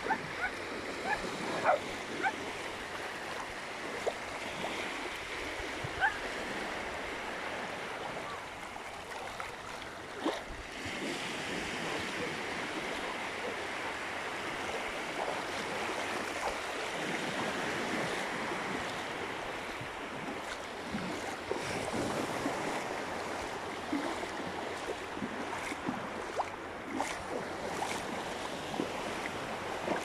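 Small waves lapping and washing over the sand in the shallows at the sea's edge, with a few brief splashes of bare feet wading through the water.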